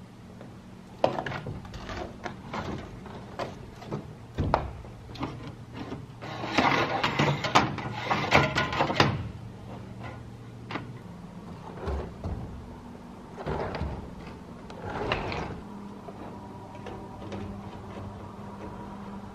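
Knocks, scrapes and clatter of metal chimney pipe being handled and fitted on a corrugated metal roof, with a dense stretch of rattling from about six to nine seconds in. A steady low hum runs underneath.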